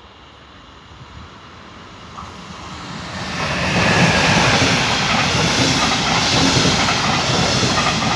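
Electric locomotive hauling a red double-deck regional train passing close by: running and wheel-on-rail noise that builds over the first few seconds as the train approaches, then stays loud and steady as the locomotive and coaches go past.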